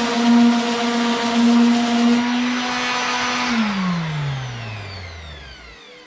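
Electric orbital sander running against a fiberglass boat hull with a steady hum and gritty rasp; the rasp eases about two seconds in as it comes off the surface, and after about three and a half seconds the sander is switched off and its motor winds down, the hum falling in pitch and fading.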